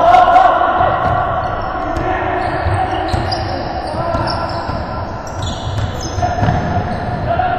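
Basketball game on an indoor hardwood court: the ball bouncing and players' footsteps thudding on the floor, with players' voices echoing in the large gym.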